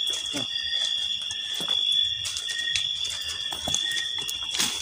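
A steady, high-pitched chorus of night insects, with footsteps and the rustle of leaves and brush as people walk through dense vegetation. A louder rustle comes near the end.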